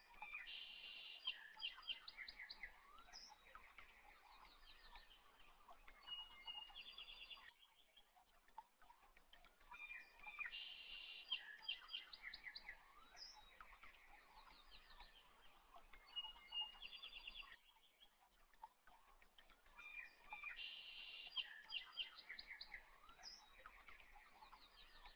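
Faint birdsong ambience: several small birds chirping and trilling. The same passage repeats about every ten seconds, so it is a looped recording.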